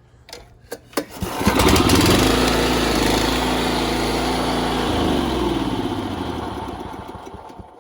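Exmark Metro walk-behind mower engine starting after a few clicks, running steadily for about three seconds, then shut off by its newly wired handle kill switch and winding down to a stop.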